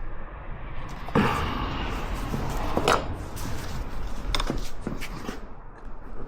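Several knocks and clatters of tools and parts being handled during a CV axle repair, with a louder one about a second in and another near three seconds, over a low steady hum.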